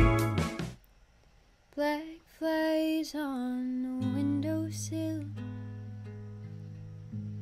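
Background music: a song with a strong beat cuts off within the first second, and after a short pause a new song begins, a woman singing softly over acoustic guitar.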